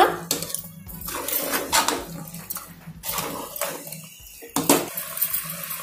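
A spoon scraping and knocking against the sides of a metal pot while stirring a thick mix of chicken pieces and ground spices with no water added. The strokes come irregularly, with a few sharper knocks among the scrapes.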